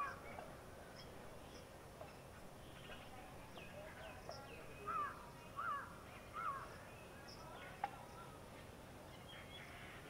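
Birds calling: a short call at the start, then three in quick succession about five seconds in. Fainter higher chirps come in between, and there is one sharp tick near the eighth second.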